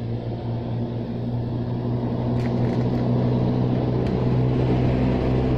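A motor engine running steadily with a low hum, growing gradually louder, with a couple of faint clicks over it.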